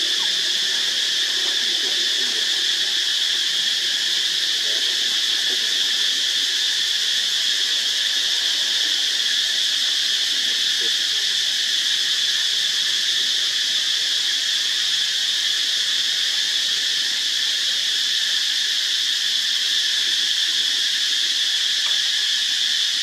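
Dense chorus of insects: a steady, high-pitched drone that holds unchanged throughout.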